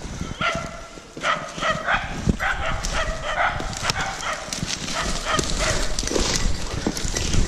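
Hunting dog barking over and over in short, high calls, baying at a wild boar held at bay, with the crunch of running footsteps through dry leaves and brush.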